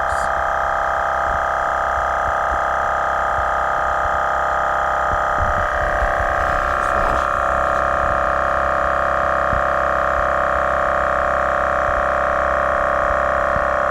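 Cordless air compressor running steadily on a Milwaukee 9 Ah battery: a constant motor-and-pump hum with a steady whine.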